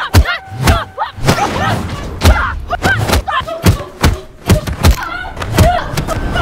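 Fight-scene sound: a rapid run of punch and body-hit thuds, about two or three a second, with the fighters' grunts and cries of effort between the blows.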